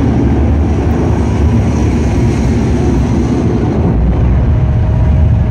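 A steady, loud low rumble, a droning sound effect played through an arena concert sound system, with no clear melody or beat yet.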